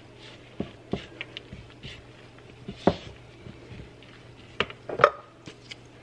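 Wooden-handled spatula stirring a dry flour and shredded-cheese biscuit mix in a plastic mixing bowl: soft scraping with several sharp knocks of the utensil against the bowl, the loudest about three and five seconds in.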